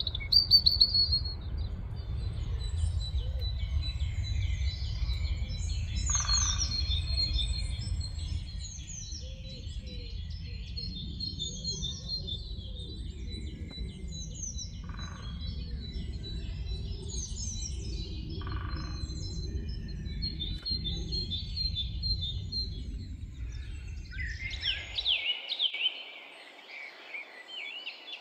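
Evening birdsong: a chorus of high chirps and short warbling phrases, with a European robin among the singers. A steady low rumble lies under the song until it cuts off abruptly about 25 seconds in. After that the song is louder and closer.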